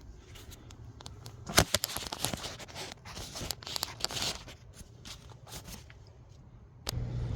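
Hand-tool work on head bolts: a sharp metallic click about one and a half seconds in, then a couple of seconds of scraping and rustling, with scattered lighter clicks.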